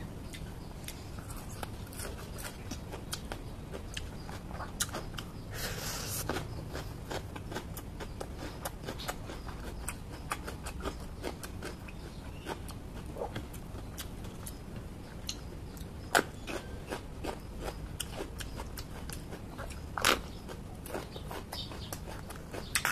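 A person chewing crunchy raw vegetables close to the microphone: a steady stream of small crisp crunches and mouth clicks, with two louder cracks, one about two-thirds of the way through and one near the end.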